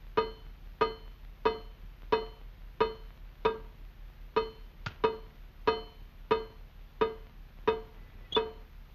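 Cartoon dripping-faucet sound effect: a slow, very regular plink of a drop, one short pitched note about every two-thirds of a second, sounding like a plucked string.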